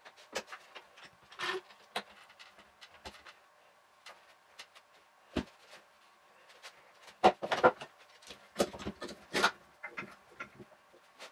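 Sped-up (4x) clatter of a workshop glue-up: bar clamps being fitted, ratcheted and set down around a glued wooden frame, with wood knocking on the bench and plastic sheet rustling. Scattered clicks and knocks, busiest and loudest from about seven to nine and a half seconds in.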